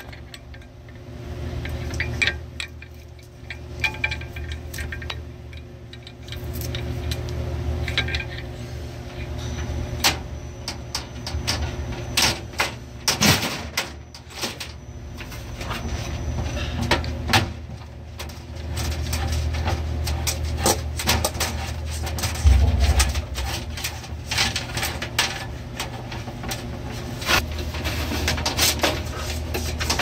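Hands working wiring and metal parts inside a reach-in freezer's evaporator compartment: scattered clicks, knocks and rustles over a steady low hum, with one heavier thump about three-quarters of the way through.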